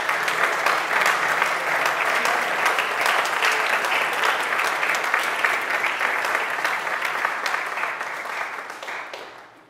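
Audience applauding, a dense steady clapping that dies away just before the end.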